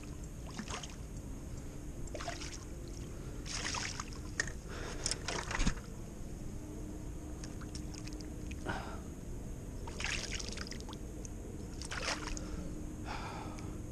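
Water splashing and sloshing in short, irregular bursts as a striped bass is handled at the waterline and released, over a steady low hum.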